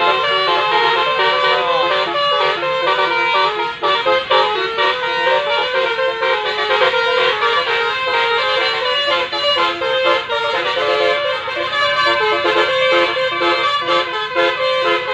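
Indonesian bus 'telolet' multi-tone air horn playing a melody in quick stepped notes, several horn tones sounding together.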